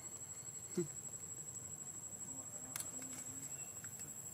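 Steady, high-pitched insect drone of crickets or cicadas, with a short low falling sound about a second in and a sharp click about three seconds in.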